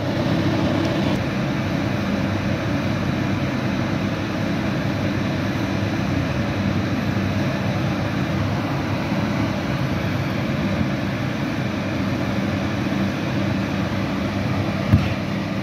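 A steady engine drone with a low hum that holds level throughout, and a single short knock near the end.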